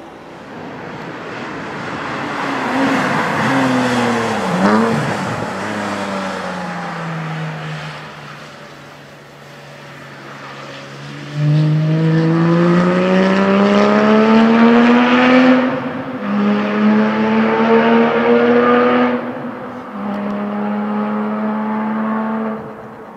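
Porsche 997 GT3 RS 4.0's flat-six engine through an Akrapovic exhaust. It passes by, its pitch dropping as it goes past about five seconds in. Then it comes in loud about halfway through and accelerates with rising pitch and a couple of gear changes, fading near the end.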